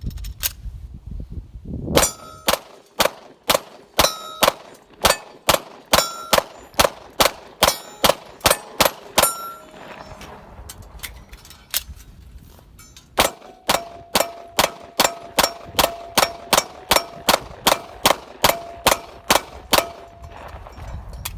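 Gen 2 Glock pistol fired in two rapid strings of shots, about two to three a second, with steel targets ringing after many of the hits. The firing stops for a few seconds between the strings.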